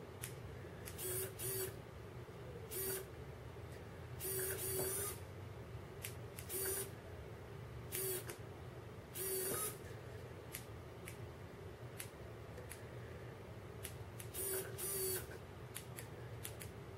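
Small electric motor of an RC4WD Warn 9.5 scale winch running in about nine short, stop-start bursts as it reels in its line and drags another crawler. The winch only answers the wireless fob intermittently, which the owner puts down to weak batteries or dirty terminals in the fob.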